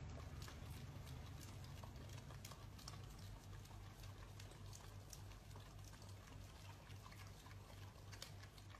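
Faint, irregular wet licking of two husky-type dogs at an ice-cream cone, small clicks over a low steady hum.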